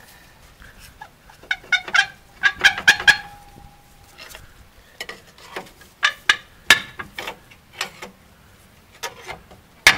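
A metal tool clinking and knocking against a rear drum brake, in clusters of sharp clicks. One knock rings briefly, about three seconds in.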